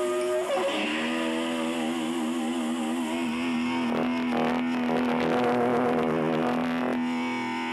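Sustained amplified instrument notes during a stage soundcheck: a held chord slides down in pitch about half a second in, then one steady held note carries on, with a wavering higher tone over it for a few seconds in the middle.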